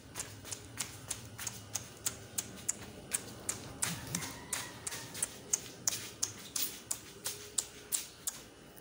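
Footsteps on a hard tiled floor: even, sharp taps about three a second.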